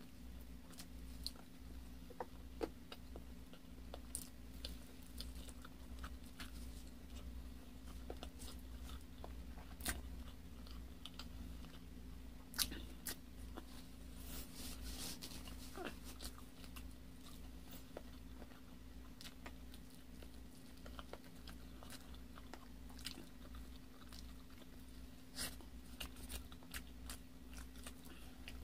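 Close-miked chewing and mouth sounds of a person eating chicken hamonado (sweet braised chicken) by hand, with irregular sharp wet clicks. A steady low hum runs underneath.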